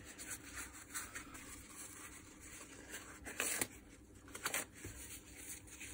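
Paper napkin rubbing and rustling as old grease is wiped off an angle grinder's gear housing and bevel gear, with two louder rustles about three and a half and four and a half seconds in.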